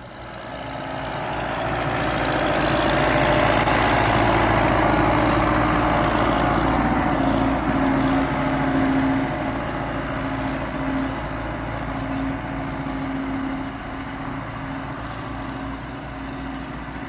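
MTZ-82.1 tractor's four-cylinder diesel engine running under load as it pulls a tillage implement through the soil. It grows louder over the first few seconds, then fades slowly as the tractor moves away.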